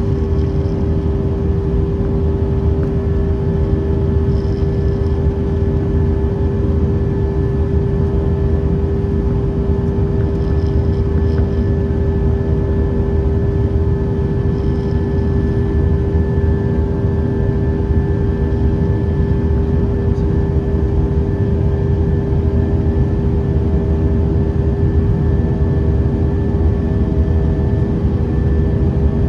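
Airbus A319 jet engines and airflow heard from inside the passenger cabin: a loud, steady drone with a constant whine, not rising or falling.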